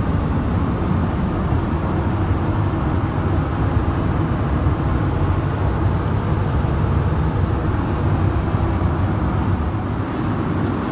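Steady low rumble of an Airbus A320-200 cabin in flight: engine and airflow noise, heaviest in the low end and unchanging throughout.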